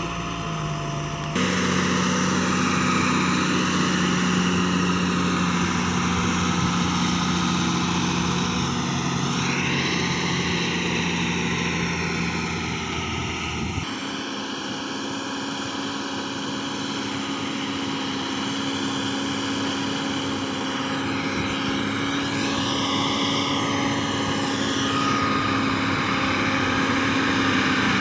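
Diesel engine of a JCB 3DX backhoe loader running steadily under load while loading soil. Its pitch steps abruptly to a new steady note twice, about a second in and again about halfway through.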